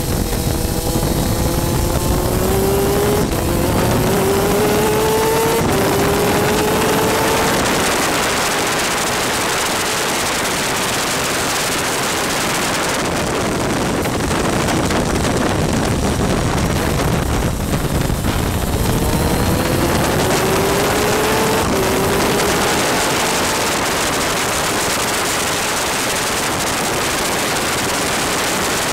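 A superkart's 250cc two-stroke engine accelerating hard up through the gears, its pitch climbing and dropping back at each upshift, then doing so again about two-thirds of the way through. Throughout, a heavy rush of wind and rain spray on the onboard microphone is louder than the engine.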